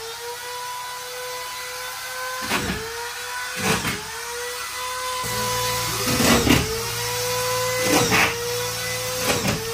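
Electric power tool running with a steady high whine. About six times, roughly every second and a half, its pitch dips briefly with a short rasping burst as it bites into the work under load, then recovers.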